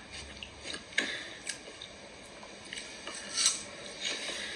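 Scattered small clicks and clinks of someone eating, a few sharp ticks over a quiet background.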